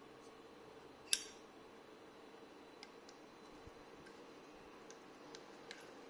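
A Zippo windproof lighter being handled: one sharp click with a short ring about a second in, then a few faint clicks.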